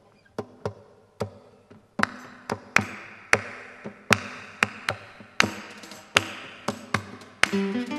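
Live music from two acoustic guitars and tabla in a percussive passage: a sparse run of sharp struck strokes, thickening about two seconds in into a steady beat of roughly two strokes a second over a wash of ringing sound.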